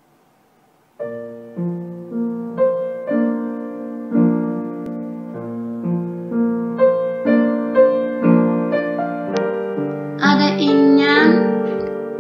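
Piano music that starts about a second in, playing a steady run of evenly paced notes and chords. Near the end a voice sings briefly over the piano.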